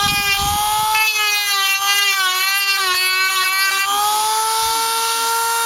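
Dremel rotary tool running with a steady high whine as it grinds down an alpaca's fighting teeth. From about a second in to about four seconds the tone turns rougher and the pitch sags while the bit bears on the tooth, then the pitch rises again.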